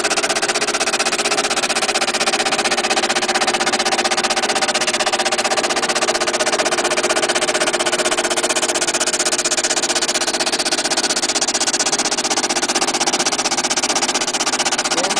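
Power sander running steadily, a continuous motor buzz with a fast, even flutter, sanding a veneered panel.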